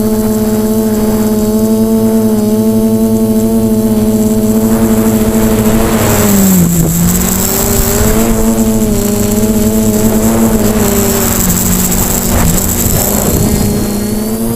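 Quadcopter's electric motors and propellers whining steadily, heard from on board. About six seconds in, the pitch drops briefly as the throttle eases and a rush of wind rises, then the whine climbs back.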